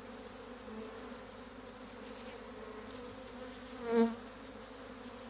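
A honeybee swarm that has just issued and settled on the ground, humming steadily as thousands of bees crawl and fly over the cluster. About four seconds in, one louder buzz passes close by.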